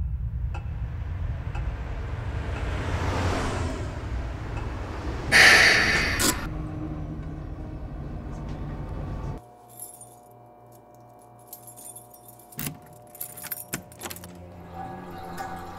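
Bus interior with a low engine rumble and a loud hiss about five seconds in. This cuts off abruptly to a bunch of keys jangling, with several sharp clicks as a key works a door lock, over faint steady musical tones.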